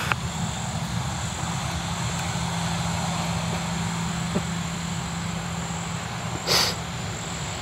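Jet airliner's engines running steadily at low power as the plane rolls along the runway after landing, a constant rushing hum with a thin high whine. A short rush of noise about six and a half seconds in.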